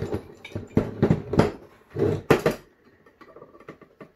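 Holley double-pumper four-barrel carburetor being handled, turned over and set down on a tabletop: a handful of heavy metal clunks and scrapes in the first two and a half seconds, then only faint small clicks.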